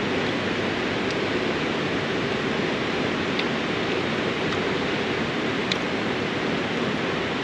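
Mountain stream rushing steadily, a constant water noise, with a few faint clicks.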